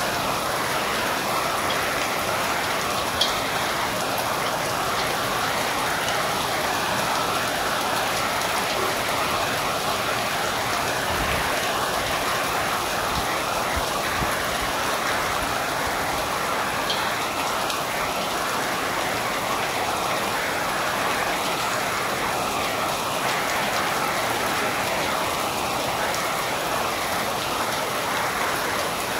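Steady rain falling, with a couple of sharper drop ticks standing out.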